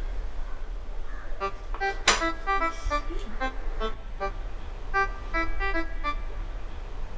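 Light background music of short, plucky keyboard-like notes, starting about a second and a half in, over a low steady hum. About two seconds in, a sharp hit stands out as the loudest moment.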